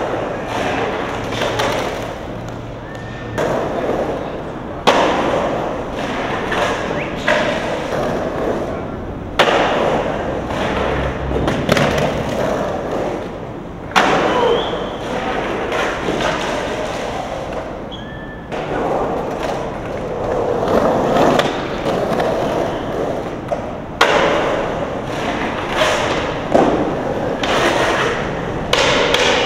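Skateboard wheels rolling and carving over a concrete bowl, a steady gritty rolling noise, with a sharp thud of the board every few seconds.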